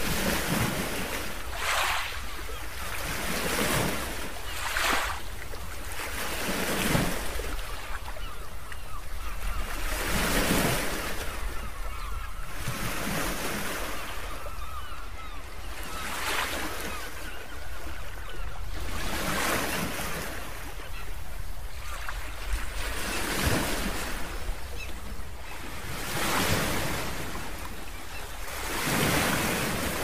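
Ocean waves washing in, a steady rush of surf that swells and falls back every few seconds.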